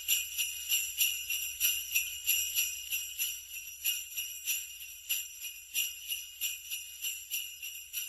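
Sleigh bells jingling in a steady rhythm, about two or three shakes a second, with a bright metallic ring.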